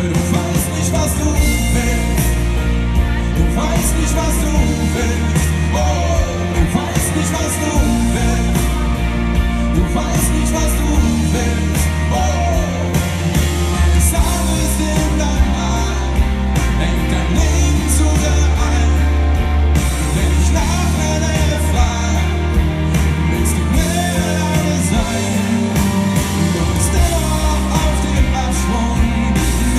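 Pop-rock band playing live: drums, bass and guitars with singing over them, continuous and loud.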